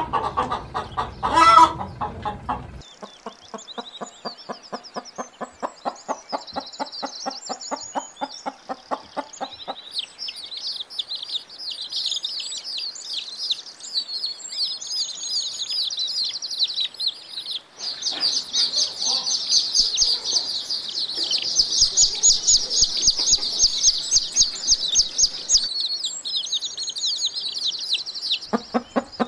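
Chickens calling: a loud squawk about a second and a half in, then a run of low, repeated hen clucks at about three a second. Dense high-pitched peeping and chirping takes over and runs through the rest.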